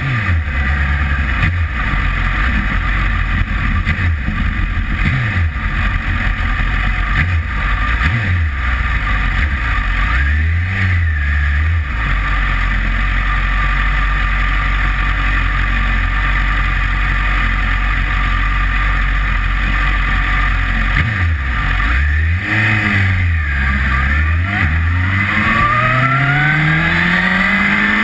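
Sportbike engine heard from on board, revving up and down through the gears, running steadily at low revs around the middle, then giving a few throttle blips and a long rising pull as it accelerates near the end, over constant wind and road noise.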